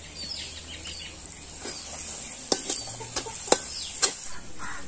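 Metal spatula stirring and scraping thick onion-tomato masala frying in oil in a kadai, with a low sizzle and about three sharp clinks of the spatula on the pan in the second half. Birds chirp briefly near the start.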